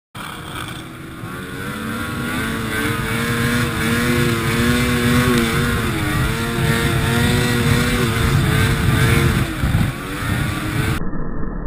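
Ski-Doo snowmobile engine running hard at high speed, heard from the rider's chest with a dense rush of wind and track noise under a steady engine note. It grows louder over the first few seconds and turns muffled near the end.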